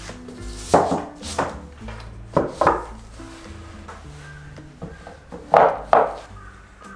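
Books set down and knocked onto a wooden bookshelf: several sharp knocks, mostly in pairs, over soft background music.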